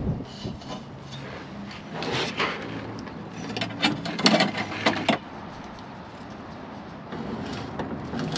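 Hands-on work noises of parts being handled and fitted: rubbing and scraping with a cluster of sharp knocks and clicks between about two and five seconds in, then quieter handling.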